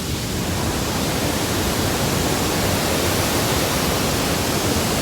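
Steady, loud rush of Elephant Falls, a large waterfall, a dense noise across all pitches that swells slightly about half a second in.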